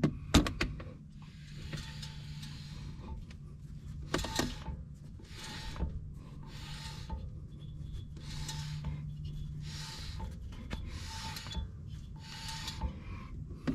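Front brake rotor and wheel hub spun by hand again and again, the brake caliper's pads rubbing on the rotor in a swishing scrape with each spin, about nine times. The spinning is meant to bring out the crackle of a worn front wheel hub bearing.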